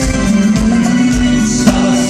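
Rock band playing an instrumental passage with sustained guitar notes over a drum beat, with one sharp drum hit near the end.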